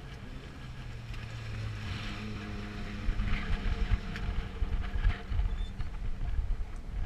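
Off-road race vehicle engine running at a steady low speed, with an irregular low rumble that gets louder in the second half.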